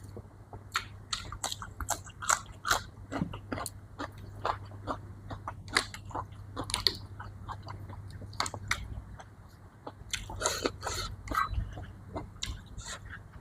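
A person eating close to the microphone: many quick, crisp chewing and biting sounds with some crunches, thinning out briefly past the middle before picking up again.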